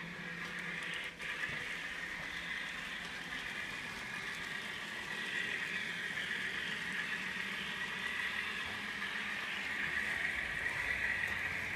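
N scale FPA-4 diesel locomotive running with its onboard sound unit on, giving a steady, tinny engine sound through its small speaker, mixed with model train running noise. A brief click about a second in.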